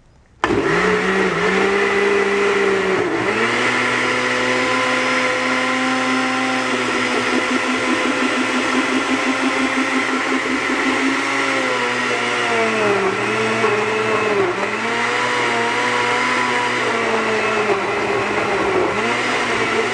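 Hamilton Beach countertop blender switched on about half a second in and running steadily, blending fruit, spinach and water into a smoothie. Its motor pitch dips and recovers several times, more often in the second half.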